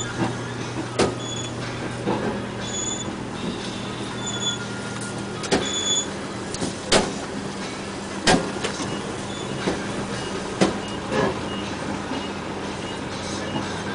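Large off-highway dump truck's diesel engine running steadily at a distance while the truck raises its bed to tip its load. Sharp, irregular knocks sound throughout and are louder than the engine, and there are a few short high beeps in the first half.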